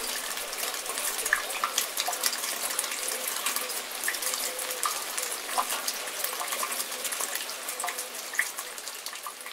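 Steady rainfall, with many individual drops heard as short ticks over an even hiss.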